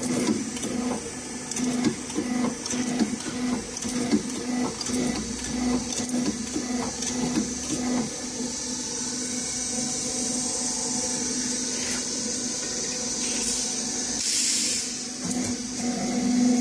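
Electric-motor stator dismantling machine running with a steady hum and hiss, with frequent knocks and clicks as the stator is worked in the first half. A brief louder hiss comes late on.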